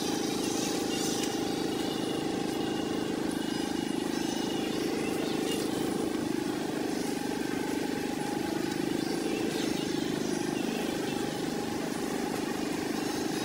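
Steady mechanical drone with a faint steady hum above it.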